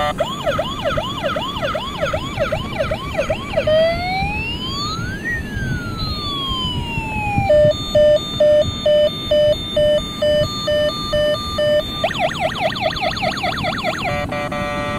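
Battery-powered toy police truck's electronic siren cycling through its sounds: a fast repeating yelp, then a slow wail rising and falling about four seconds in, then steady beeping at about two beeps a second, and the fast yelp again near the end.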